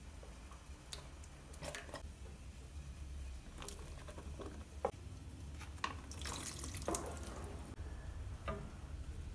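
Ingredients going into a pot of tomato sauce: wet drips and plops and scattered light clicks over a low steady hum, with a short hissing stretch about six seconds in.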